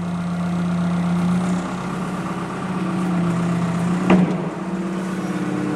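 Bobcat S130 skid steer's 49 hp four-cylinder Kubota diesel idling steadily, with a muffler that needs replacing. A single short knock comes about four seconds in.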